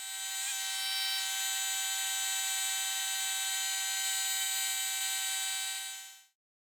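A steady, high-pitched buzz that fades in over the first second, holds even, and cuts out about six seconds in.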